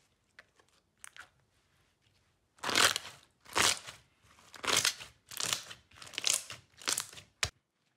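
Glossy glitter slime being squeezed and pressed by hand: faint soft squishes at first, then from about two and a half seconds in a run of about seven loud crackling squishes, roughly one a second, ending in a sharp pop.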